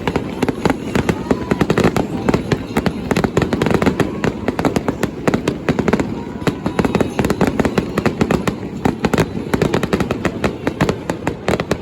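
Fireworks display: a rapid, dense barrage of bangs and crackles, several bursts a second without a break.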